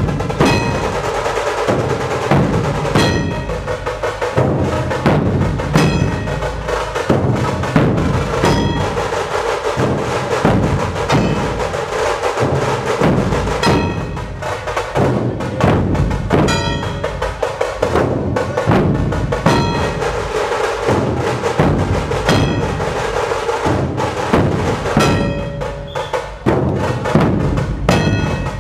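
Dhol-tasha pathak: a large ensemble of Maharashtrian dhol barrel drums beaten with sticks, together with tasha drums, playing a loud, driving rhythm with sharp accented strokes in unison.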